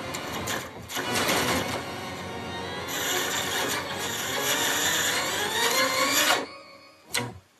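Cartoon soundtrack audio mangled by heavy distortion effects into a dense, harsh noise with rising tones. It cuts off sharply about six and a half seconds in, and one short burst follows near the end.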